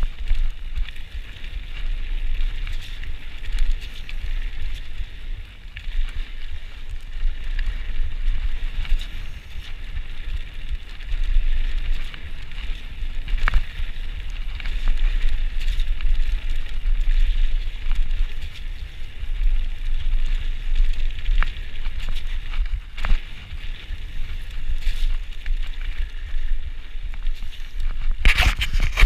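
Mountain bike riding fast down a dirt singletrack: wind rumbling on the camera microphone over the tyres' hiss on dirt, with scattered knocks and rattles from the bike over bumps. A louder burst of noise comes near the end.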